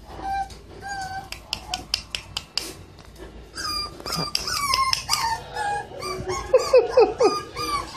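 A litter of young Chorkanese and Havalonka crossbreed puppies whimpering and yelping in short, high-pitched cries that come thicker and louder in the second half.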